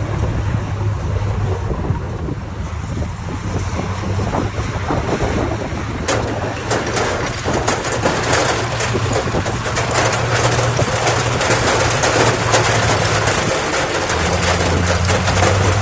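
Heavy diesel construction machinery running steadily. About six seconds in, a dense gritty rattle and crackle sets in and builds, like soil and stones being moved.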